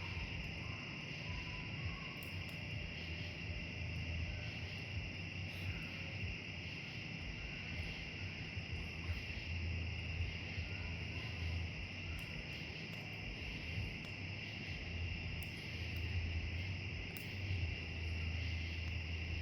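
Steady chorus of crickets and other insects chirping in the woods, with a low hum underneath that comes and goes.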